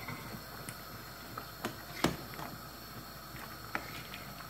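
Metal ladle stirring soup in a large metal pot, knocking lightly against the pot's side a few times, the loudest knock about two seconds in, over a faint steady hiss.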